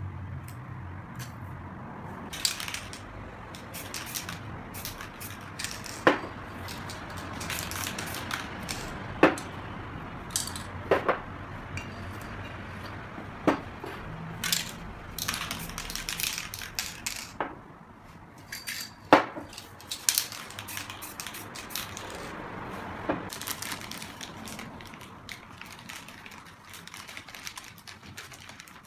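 Aerosol spray-paint cans hissing in short bursts, between sharp metallic clinks and knocks as the cans are picked up and set down on the table.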